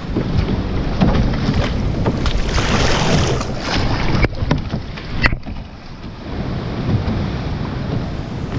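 Sea water splashing and rushing around a GoPro held at water level on a kayak in rough, breaking waves, with wind buffeting the microphone. About four seconds in the camera goes under the water: the sound turns muffled and quieter for about two seconds, with one sharp click, then the splashing and wind come back.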